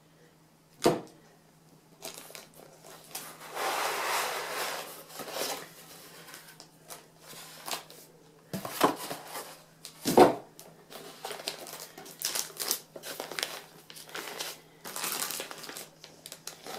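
Cardboard and plastic packaging being handled: irregular rustling and crinkling with a few sharp knocks, the loudest about one and ten seconds in.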